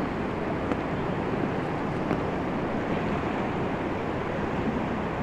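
Steady rush of a fast-flowing river pouring past a concrete causeway, the current running high after rain.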